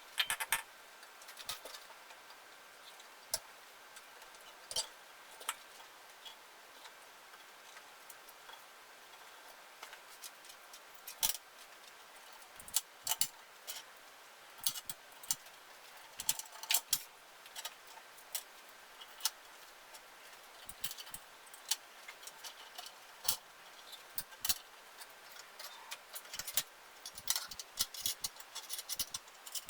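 Irregular light clicks and taps of hand tools and parts being handled, scattered unevenly, with clusters near the start and toward the end.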